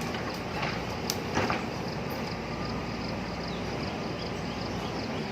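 Diesel engine of a JCB backhoe loader running steadily at work, with a few sharp knocks in the first second and a half.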